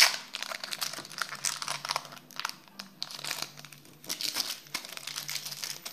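Foil trading-card sachet being torn open: a sharp rip at the start, then the foil wrapper crinkling irregularly as it is worked open.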